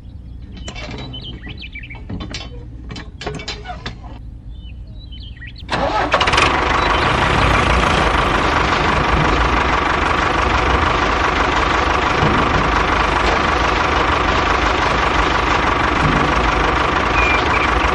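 A chainsaw motor starting up abruptly about six seconds in, after a few faint clicks, then running steadily with a constant whine.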